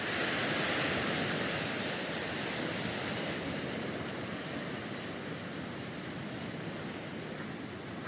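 Steady rushing noise of wind and rough sea surf, slowly growing fainter.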